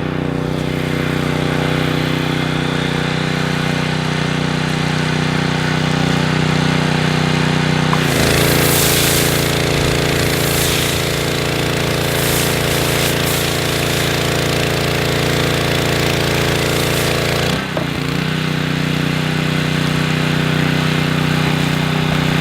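Gas pressure washer's Subaru engine running steadily at working speed. About a third of the way in the trigger is pulled and a loud hiss of spray from the foam blaster joins it, with a slight change in the engine note under load. The spray stops about four seconds before the end and the engine runs on.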